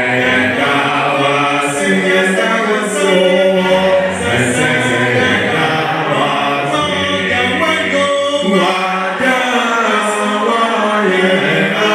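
A group of voices singing a hymn a cappella, with no instruments, in several parts holding long notes together.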